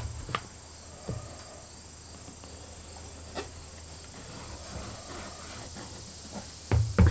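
Light knocks and taps from plywood pieces and a plastic wood-glue bottle being handled on a wooden workbench while glue is squeezed onto a joint, with two louder thumps near the end. A steady low hum runs underneath.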